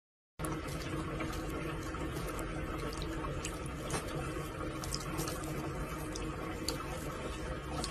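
A tap running a thin stream of water into a sink, with scattered small ticks. The sound starts a moment in, after a brief silence.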